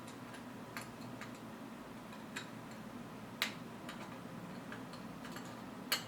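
Irregular light clicks and taps of small camera parts being handled, with two sharper clicks about three and a half and six seconds in, over a faint steady hum.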